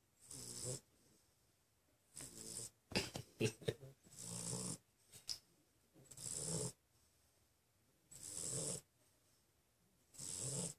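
Sleeping pit bull snoring in slow, regular snores, about one every two seconds. About three seconds in, a quick run of short sharp clicks or snorts is louder than the snores.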